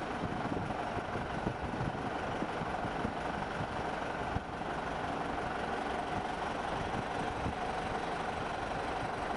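Steady industrial machinery hum and noise of a large shipbuilding hall, with a faint steady drone and scattered faint knocks and clanks.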